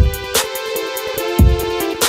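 Background music: an electronic track with a steady beat of deep kick drums and a sharp snare over held synth tones.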